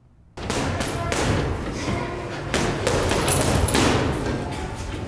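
A dense run of heavy thuds and knocks that starts abruptly about half a second in.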